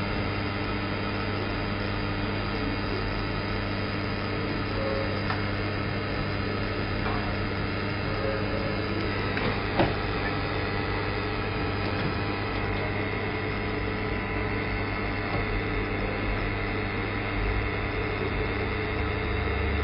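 Automatic seam welder's arc burning steadily along a sheet seam: a continuous hum with a steady hiss, and one short click about ten seconds in.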